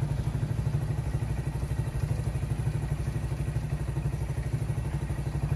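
A nearby engine idling steadily with a fast, even throb.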